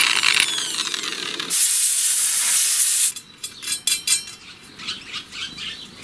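Electric drill winding down with a falling whine as it comes off the bit in a steel bicycle sprocket. Then a loud, even hiss lasts about a second and a half and cuts off sharply. Light metallic clicks and taps follow as the pulley and its bolts are handled.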